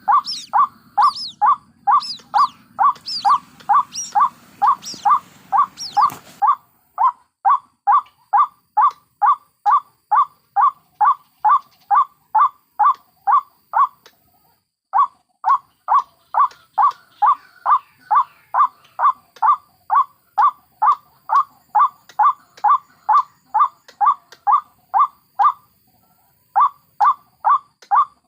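White-breasted waterhens calling: a harsh call note repeated about twice a second, pausing briefly twice. Over the first six seconds thin, high sweeping notes sound above it, and they stop abruptly.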